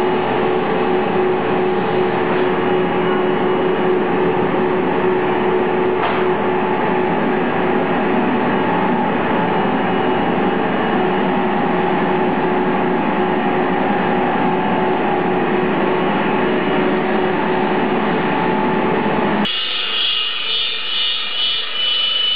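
Plastic extrusion line machinery running with a steady hum and a constant whine. About 19 seconds in the sound changes abruptly to a thinner, higher-pitched machine whine.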